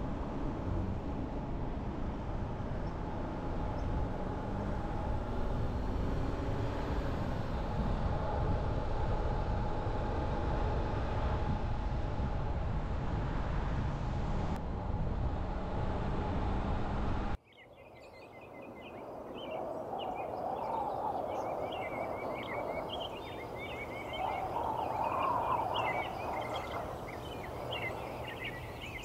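Steady road and engine noise of a car driving in city traffic, with a pitch that rises and falls now and then. About seventeen seconds in it cuts off abruptly to quieter street ambience with birds chirping.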